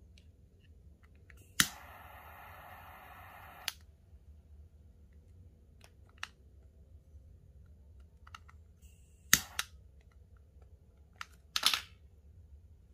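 Butane jet torch lighter clicks alight about one and a half seconds in and hisses steadily for about two seconds, then cuts off with a click as it is held to the end of the micro cord. A few sharp clicks from the lighter and handling follow later, the loudest near the end.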